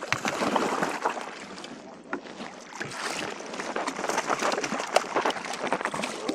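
Water splashing and sloshing beside a kayak, with irregular knocks, as a hooked bass thrashes at the surface while it is being brought in.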